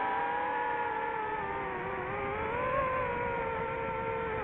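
DJI FPV drone's motors and propellers whining steadily, the pitch sagging slightly and then briefly rising a little under three seconds in as the throttle changes.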